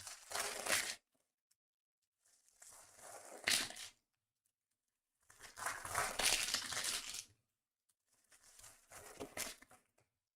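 Foil trading-card pack wrappers being torn open and crinkled by hand, in four separate bursts of about a second or two each with silence between.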